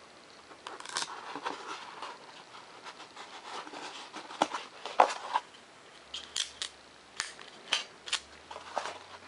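Foam-board wing and clear scotch tape being handled: scattered sharp clicks and crackles as the tape-hinged aileron is folded over and the tape is pressed on. The loudest click comes about five seconds in.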